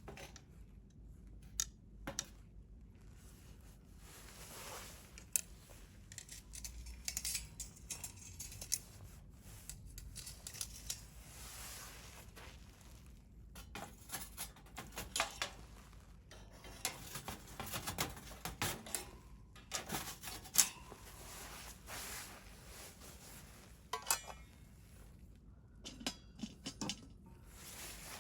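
Wood fire crackling: irregular sharp pops and snaps, now sparse, now in quick clusters, over a soft hiss of burning.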